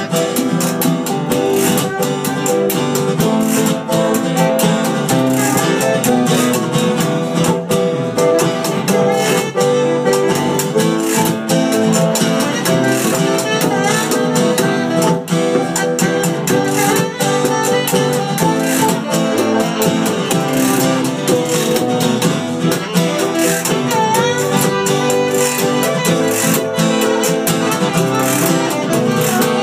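Live acoustic band playing an instrumental passage: strummed acoustic guitars with a hand drum keeping a steady beat.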